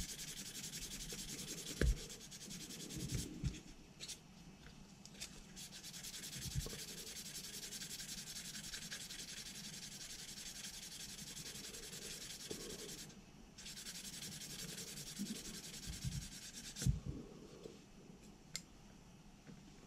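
400-grit sanding stick rubbed rapidly back and forth over a plastic model-kit part, smoothing down a mould line: a steady, fine scratchy rasp. It breaks off briefly about four seconds in and again about thirteen seconds in, with a few soft knocks of the part being handled, and fades out near the end.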